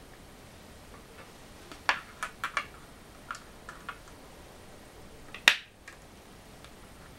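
Go stones being handled on a wooden go board: a scatter of light clicks and clacks about two to four seconds in, then one sharp, louder click about five and a half seconds in.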